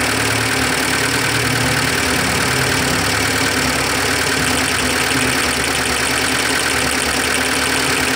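Carburettor four-stroke engine of a 1997 Suzuki Carry T120 SS idling steadily. Its spark plug leads are being worked at the distributor cap to find a misfiring cylinder from a dead plug or plug lead.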